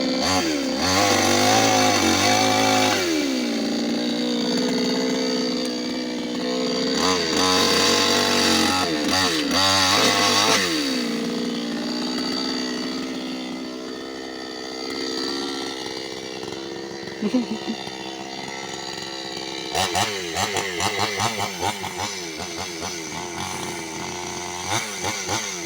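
New West 598X two-stroke gasoline chainsaw running: revved up to high speed twice, settling back to a lower steady speed, then a quick series of short throttle blips near the end.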